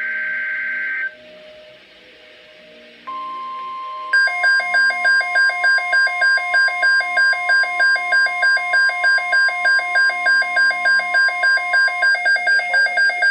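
NOAA Weather Radio Emergency Alert System tones: a SAME digital header burst ends about a second in. About 3 s in the steady 1050 Hz weather radio warning tone starts and holds until near the end. From about 4 s in a loud electronic alarm beeps about three times a second over it.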